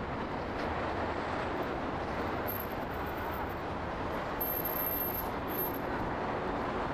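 Steady noise of city traffic, even and continuous with no distinct events.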